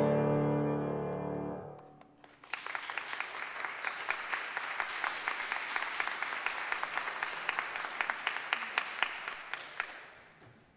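A grand piano's final chord rings and fades out over about two seconds, then the congregation applauds, clapping steadily for several seconds before dying away near the end.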